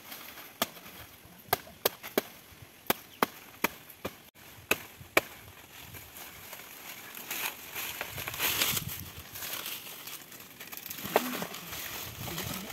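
A machete chopping at a banana plant: about ten sharp, separate strikes in the first five seconds, then a few seconds of rustling.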